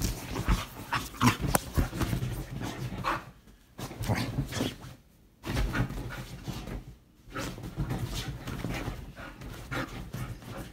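Bull terrier making excited noises and rustling the bedding as she thrashes about on the bed, in irregular bursts broken by a few short pauses.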